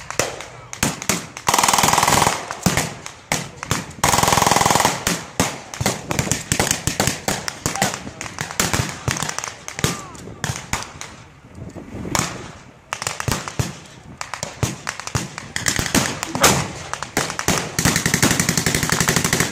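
Blank gunfire from rifles and machine guns: scattered shots throughout, two sustained machine-gun bursts about two and four seconds in, and a longer rapid burst near the end.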